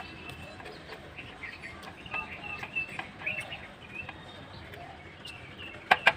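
Birds chirping in the background, short high chirps repeated through the middle, with two sharp clicks near the end.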